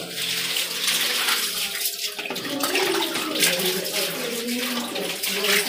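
Water splashing and sloshing as plastic dog bowls are washed by hand in a tub of water.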